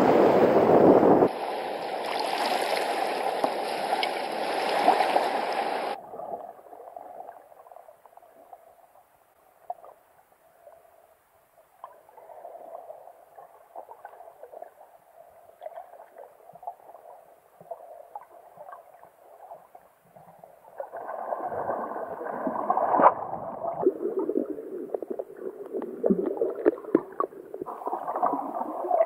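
Wind and surf noise above the water for about the first six seconds. Then the faint, muffled wash of water heard by a submerged camera. Near the end it grows louder, with scattered crackles and clicks.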